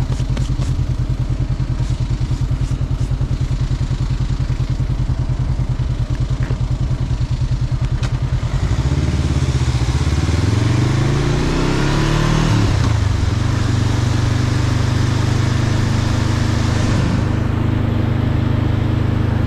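Motorcycle engine idling with an even, lumpy pulse, then pulling away about nine seconds in, its pitch rising for a few seconds before it settles into a steady cruise. A rushing hiss rises with the speed and fades out near the end.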